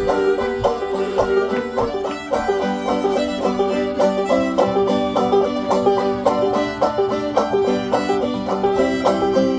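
Bluegrass string band playing an instrumental break, a banjo picking rapid rolls with fiddle and guitar behind it.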